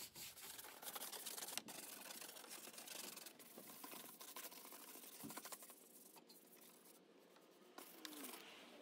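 Faint scratchy scrubbing of stiff detailing brushes over a soap-foamed engine cover, with bristles rubbing through the foam in quick strokes.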